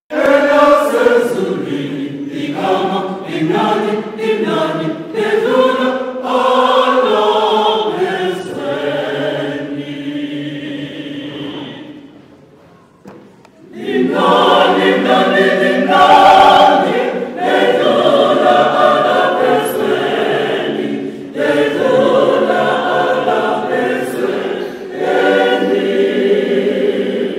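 Mixed choir of women's and men's voices singing in harmony. The singing fades out a little before the middle, pauses for about two seconds, then comes back in.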